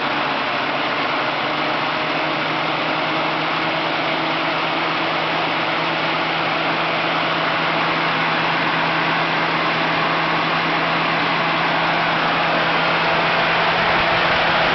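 1953 American LaFrance J-series V12 engine with twin Zenith carburettors, freshly rebuilt top end, idling steadily. It grows a little louder near the end.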